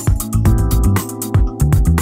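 Background music with a steady beat and deep bass.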